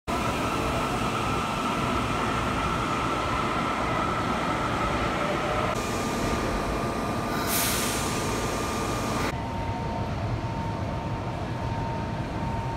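Underground subway station noise: a steady rumble and hum from a train at the platform, with a faint steady whine. A burst of hiss comes about seven and a half seconds in, and the sound changes abruptly twice.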